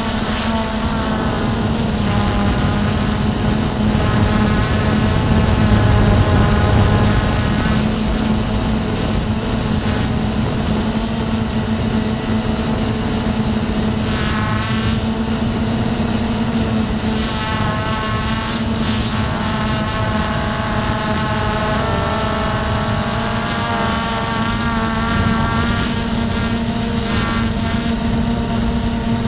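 DJI Phantom 4 quadcopter's propellers and motors humming steadily in flight. Several higher motor tones shift in pitch partway through as the drone changes speed and direction.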